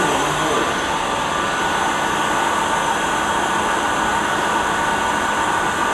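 A motor-driven blower or extractor running steadily, a continuous whir with a faint high whistle in it.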